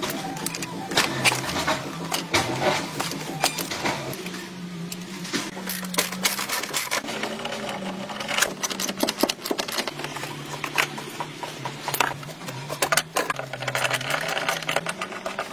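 Hand tools clicking, tapping and scraping on the metal and plastic parts of an old car as its dashboard and window trim are pried apart: an uneven run of sharp clicks and rattles.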